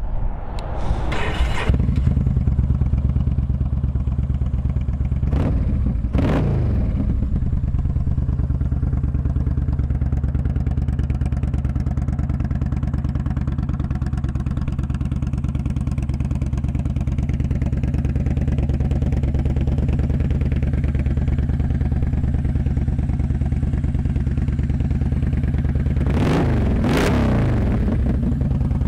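2012 Yamaha V Star 950's air-cooled, fuel-injected V-twin running through full-length Cobra chrome exhaust pipes. It idles steadily, with a few quick throttle blips in the first several seconds and a longer rev near the end.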